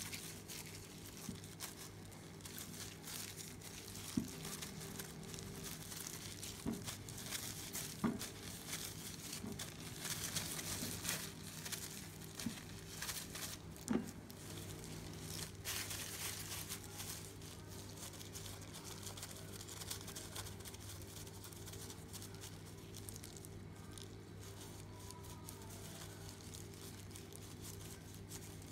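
Disposable plastic food gloves crinkling and rustling as hands pull apart and shape sticky glutinous rice dough, with a few sharp knocks about 4, 8 and 14 seconds in, over a steady low hum.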